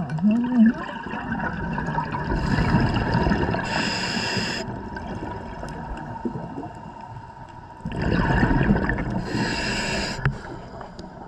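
Scuba diver breathing through a regulator underwater, heard twice, about two and a half and eight seconds in: each breath a rush of gurgling bubbles followed by a hiss, over a steady low gurgle. A short gliding tone sounds right at the start.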